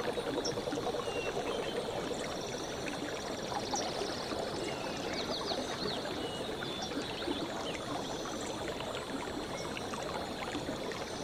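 A stream running and babbling steadily over stones, with short high chirps and a rapid trill scattered above the water noise.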